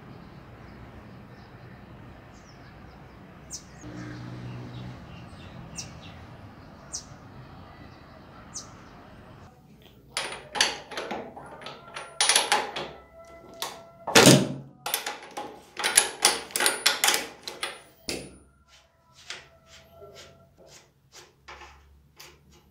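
Steel tool clinking and knocking against the motorcycle's top steering stem nut and triple clamp, the metal ringing after the strikes. It starts about ten seconds in as a dense run of clanks and thins to light clicks near the end. Before that there is only a faint hum with an occasional tick.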